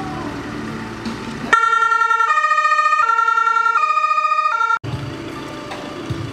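Two-tone emergency vehicle siren of the German fire-service kind, alternating between a low and a high note, each held about three-quarters of a second. It starts suddenly about a second and a half in and stops abruptly after about three seconds.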